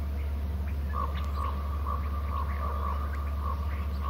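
An animal calling in a run of short, same-pitched notes about twice a second, starting about a second in, over a steady low hum.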